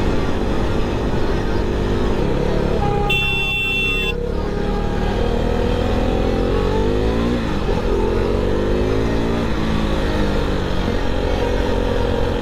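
KTM RC390's single-cylinder engine running under way in traffic, its pitch rising and falling with the throttle, over heavy wind rush. About three seconds in, a vehicle horn sounds for about a second.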